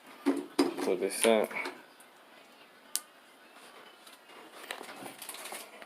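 A man's voice for the first second and a half, then a single sharp click about three seconds in, and faint handling noise near the end.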